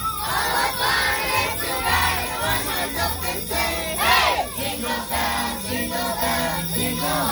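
Sleigh bells jingling over Christmas music, with a carful of passengers' voices; a child's voice rises loudly about four seconds in.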